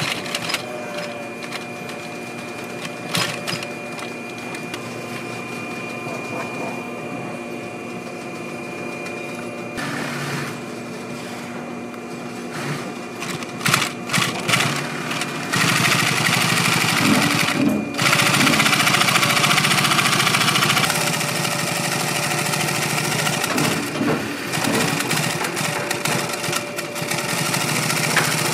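Industrial sewing machine stitching a leather boot upper and its insulated lining, running in stretches. The loudest, busiest run comes a little past the middle, lasting several seconds.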